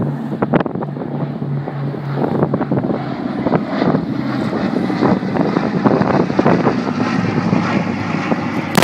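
Piston engines of a propeller-driven warbird running as it flies past, with a steady low hum for the first few seconds, then a rough, crackling engine noise. Wind buffets the microphone throughout.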